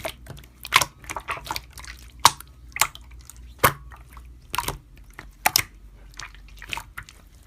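Slime being squished and pressed by hand, making irregular wet, sticky clicks and pops.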